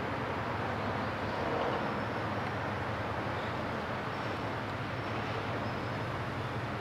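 Passing RORO cargo ship's engine giving a steady low hum, under a continuous rushing of water from its bow wave.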